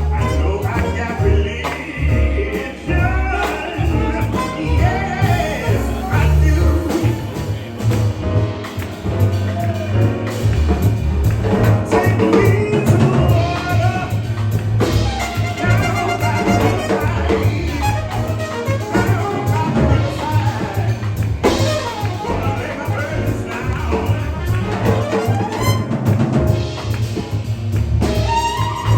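Jazz-style music with brass and a strong, steady bass, playing without a break.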